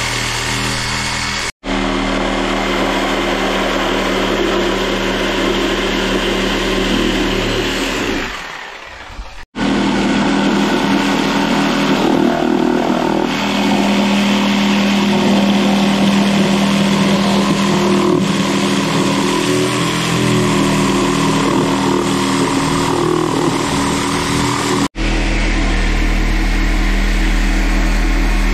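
Reciprocating saw running and cutting through the subfloor along the base of a wall, a loud steady motor buzz. It slows and dips about eight seconds in, then runs on, and drops out abruptly for an instant three times.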